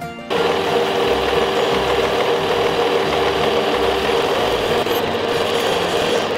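Metal lathe running while a boring bar cuts the bore of an aluminium workpiece. A loud, steady machining noise with a strong steady note starts suddenly just after the start.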